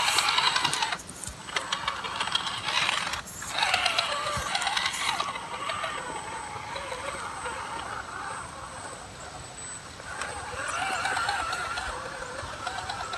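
Vaterra Ascender RC scale rock crawler on SCX10 axles climbing rock: its electric motor and geartrain whine, rising and falling in pitch with the throttle, over clatter from the tyres and chassis on the stone. It is loudest in the first second and again around four seconds in.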